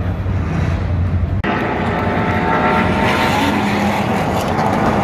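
A field of NASCAR Truck Series race trucks, V8 engines running together at low warm-up-lap speed, a steady drone of many engines. The sound breaks off for an instant about a second and a half in, then comes back louder and brighter.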